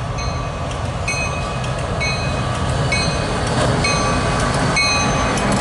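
Diesel freight locomotive passing close by, its engine rumble and steel wheels on the rails growing steadily louder as it goes by, with a short metallic ring about once a second.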